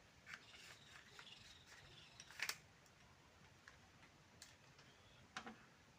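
Faint clicks and light taps of small metal parts being handled as a spring is fitted into a Hyosung HCDU push plate assembly, the sharpest click about two and a half seconds in.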